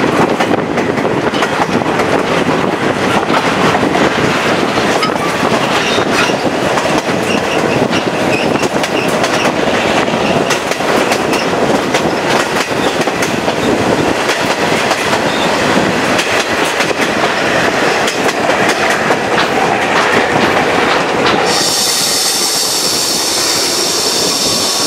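Chepe passenger train running along the track, heard from one of its coaches: a steady rumble of steel wheels on the rails with rapid clicking. Near the end the wheels start a high, steady squeal as the train rounds a curve.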